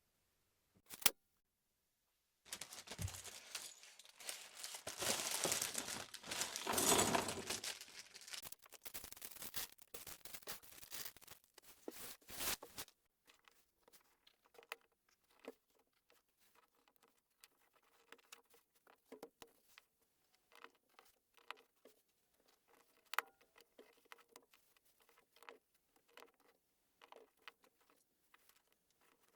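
Crinkling and rustling of a plastic LEGO parts bag being opened and rummaged through for about ten seconds, then a long run of small, faint plastic clicks and taps as pieces are handled and snapped together.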